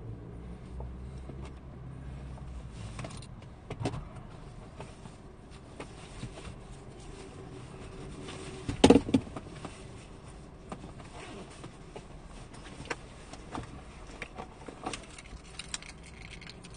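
Low, steady hum of a car's idling engine heard from inside the cabin, with scattered small clicks and knocks, and one short loud noise about nine seconds in.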